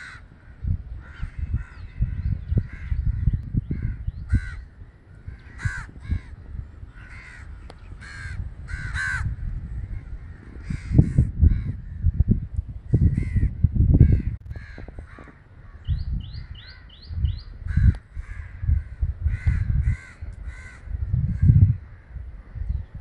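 Crows cawing over and over, call after call, over a low, gusty rumble of wind on the microphone. About two-thirds of the way through, another bird gives a quick run of five short high notes.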